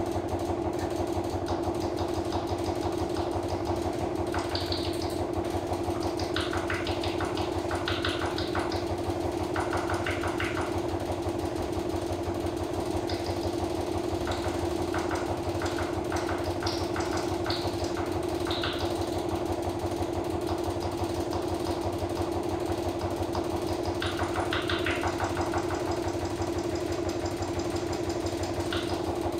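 Live electronic sound performance: a steady mid-pitched drone over a fast, even low throb. Short bursts of higher rattling sound come and go throughout, most clearly about a second in, around four to ten seconds, and again near twenty-five seconds.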